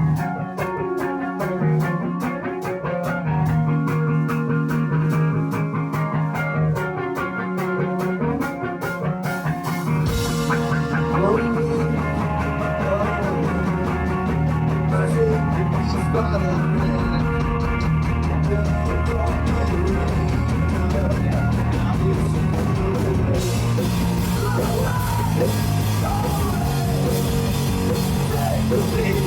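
A rock band playing live in an instrumental passage, with no singing. Guitar leads alone at first; bass and drums come in about ten seconds in and the sound fills out, and cymbals crash in more loudly about six seconds before the end.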